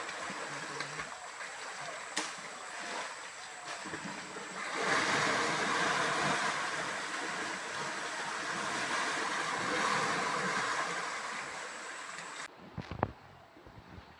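Fast-flowing stream water rushing and churning as two elephants wrestle in it, a steady noise that grows louder about five seconds in. It cuts off abruptly near the end, giving way to a quieter background with a couple of short knocks.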